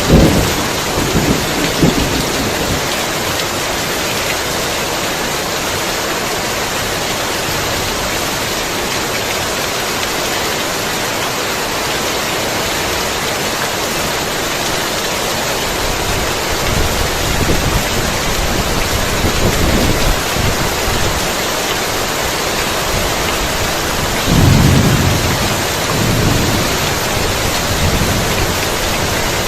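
Heavy rain falling steadily in a thunderstorm, with low rolls of thunder: one dying away in the first second or so, softer rumbles about two-thirds of the way through, and the loudest roll near the end.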